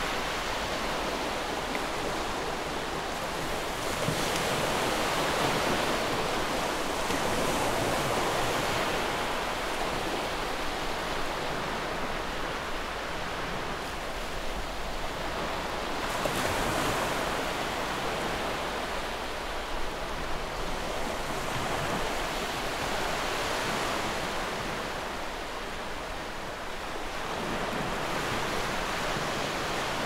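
Continuous rushing water noise like ocean surf, swelling and easing slowly without a break.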